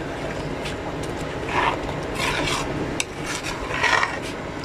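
Metal spoon stirring a thick chickpea and chicken gravy in a metal pot. It scrapes against the pot in three strokes, about one and a half, two and a quarter, and three and a half seconds in.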